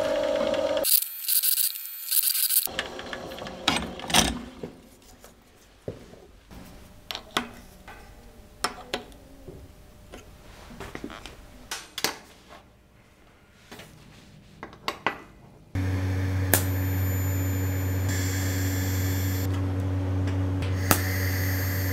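A drill press boring into a steel part clamped in a machine vice, then small steel hinge parts and a pin clinking and knocking on a steel workbench in scattered taps. About three-quarters of the way through, a steady low hum sets in and holds.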